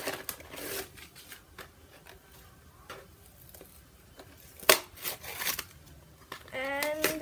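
Toy packaging being opened by hand: rustling and scraping with scattered clicks, and one sharp snap a little after halfway. Near the end a child's voice makes a short drawn-out sound.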